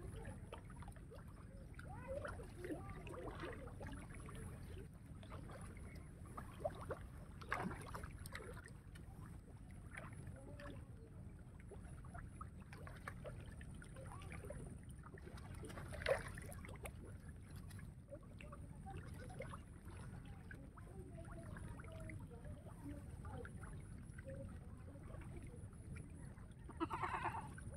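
Quiet outdoor ambience: a steady low rumble with faint scattered small sounds, a single sharp click about sixteen seconds in, and a brief pitched sound near the end.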